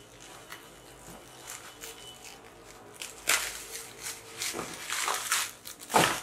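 Plastic bubble wrap crinkling and rustling in bursts as it is handled and pulled open, after a quieter first few seconds, ending with one sharp, loud knock.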